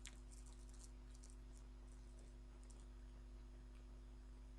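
Near silence: a faint steady electrical hum with a few faint, short computer mouse clicks.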